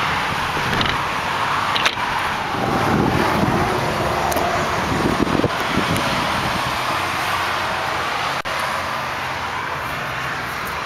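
Steady roar of highway traffic, with a sharp click about two seconds in as the pickup's rear door latch is pulled open.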